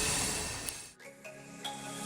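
Canadian National freight train's wheels squealing on the rails and fading out. About a second in, it cuts to soft music with held notes.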